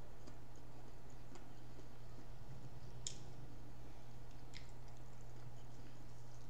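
Quiet eating sounds from people eating fried seafood: a few sparse soft clicks and smacks, the loudest about three seconds in, over a steady low hum.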